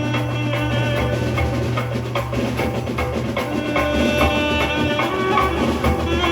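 Dhumal band playing a Sawari dhun procession tune: saxophones carry the melody over drums and percussion.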